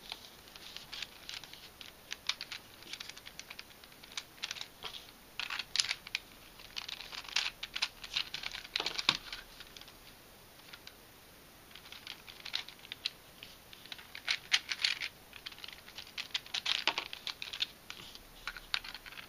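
3D-printed plastic pieces of an Asymmetrical Dino 2x2 twisty puzzle clicking and rattling as they are handled, pushed into place and turned, in irregular clusters of clicks with a short lull about halfway through.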